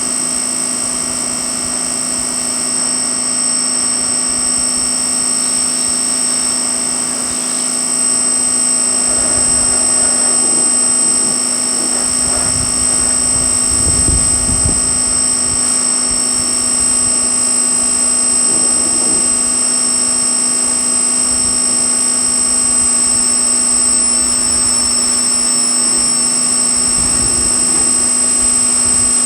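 Pressure washer running steadily while spraying the underside of a vehicle: a constant high whine over a lower hum and the hiss of the spray, a little louder from about eight seconds in.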